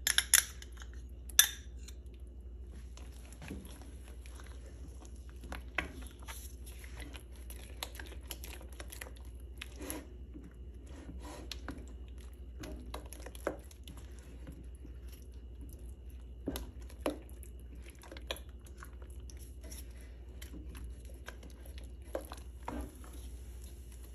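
Silicone spatula stirring and pressing a thick, sticky cornflour-and-sugar halwa paste in a stainless steel pot, with irregular soft scrapes and light knocks against the pot. A few sharp clinks in the first second or so as a small glass bowl of ghee is tipped in. A steady low hum underneath.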